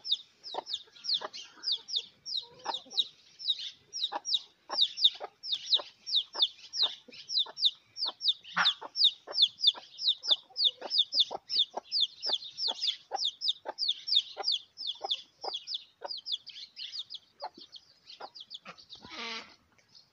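A young chick peeping without pause, each peep a quick high falling note, about three a second, with a hen's low clucks underneath.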